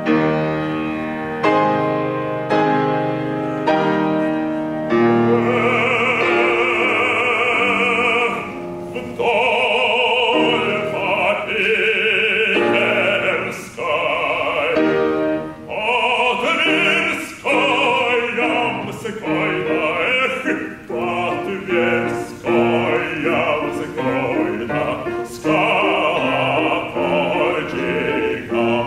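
Operatic bass voice singing with vibrato, accompanied by a Bösendorfer grand piano. The piano plays alone at first, and the voice comes in about five seconds in.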